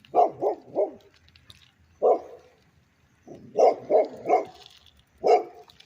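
A dog barking repeatedly, about eight short barks: a quick run of three, a single bark, another run of three and a last single bark.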